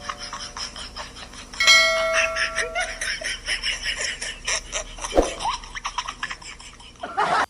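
A doorbell chime rings once about a second and a half in, over bursts of laughter.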